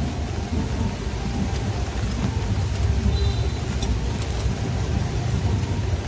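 Steady low rumble of workshop background noise, with a few light clicks as hand tools are handled on a bare diesel cylinder head.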